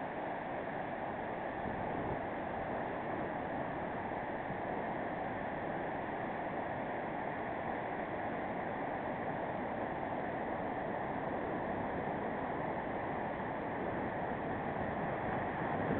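Surf from a rough sea, waves breaking and washing up a sandy beach in a steady, unbroken rush of noise.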